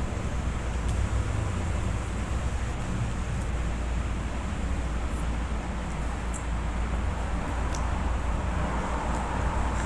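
Steady low rumble of background noise, with a few faint light ticks now and then.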